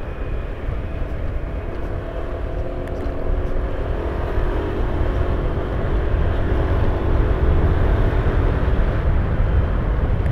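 A vehicle engine running while travelling along a road, with a heavy low rumble of road and wind noise. The engine note swells slightly about halfway through.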